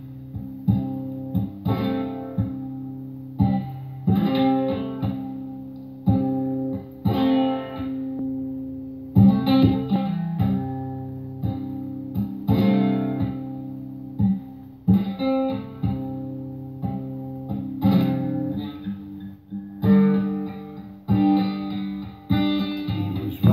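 Guitar intro: chords strummed about once a second, each ringing and fading before the next.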